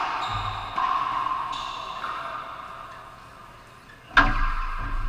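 Racquetball strikes in an enclosed court: a handful of sharp cracks, each followed by a long ringing echo off the walls. Three come in the first two seconds and the loudest comes about four seconds in.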